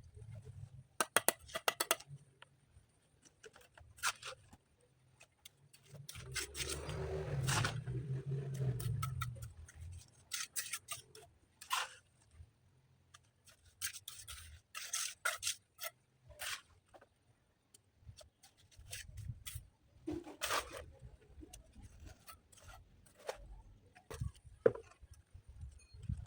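Scattered scrapes and sharp knocks of stones and hand tools being handled in masonry work, with a low rumbling noise for a few seconds about a quarter of the way in.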